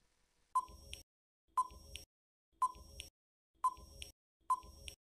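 Quiz countdown timer sound effect: five short ticking beeps, about one a second.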